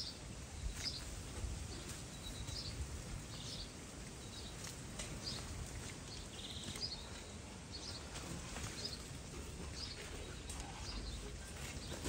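Goldfinches giving short, high twittering calls, scattered about once a second, with one buzzier call about halfway through, over a low wind rumble.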